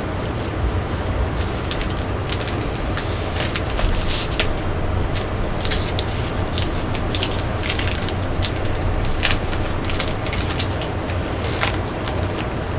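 Blu-ray box set packaging being handled and packed back together: irregular rustles, clicks and taps of cardboard, paper and plastic cases, over a steady low hum.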